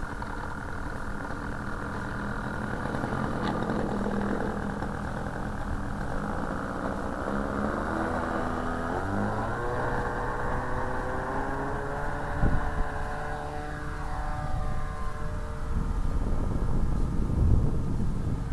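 Sky Raider radio-controlled model airplane's engine and propeller running on the takeoff run. The steady drone rises in pitch about eight seconds in as the throttle opens, then falls in pitch from about twelve seconds as the plane passes and climbs away. There is a thump about twelve seconds in, and wind rumbles on the microphone near the end.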